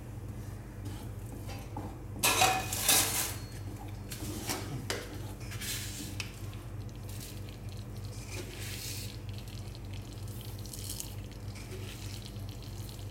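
Wooden spatula stirring and scraping thick masala paste in a frying pan, with a brief loud clatter of kitchen utensils about two seconds in and softer scraping strokes after. A steady low hum runs underneath.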